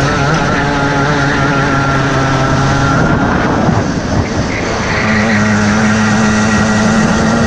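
Onboard sound of a DMAX kart's two-stroke engine running hard at speed. The note breaks up about three to four seconds in as the kart slows for a corner, then returns and climbs slowly as it accelerates out.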